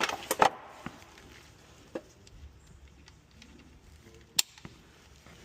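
Metal tools being handled as a torque wrench is picked up and readied: a few quick clicks and clinks at the start, another about two seconds in, and one sharp click about four seconds in, with little sound between.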